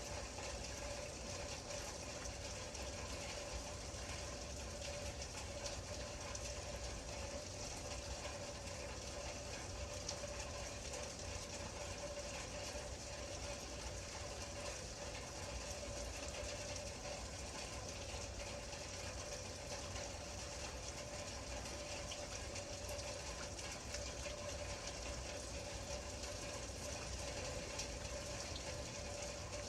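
Steady rain, a dense even patter of drops, with a constant low hum underneath.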